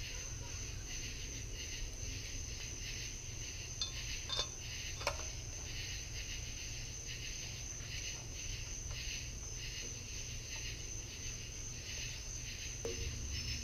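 Steady chirping of insects, with a constant high whine and a fast, even pulse. Two or three light clicks come about four and five seconds in as small engine parts are handled.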